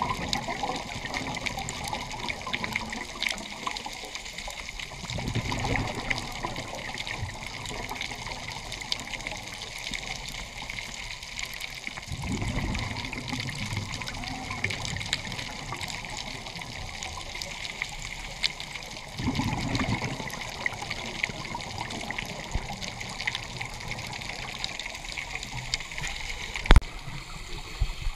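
Underwater sound of a scuba dive: a diver's exhaled air bubbling out of the regulator in three low rumbling surges about seven seconds apart, over a steady hiss and a constant crackle of tiny clicks. One sharp, loud click comes near the end.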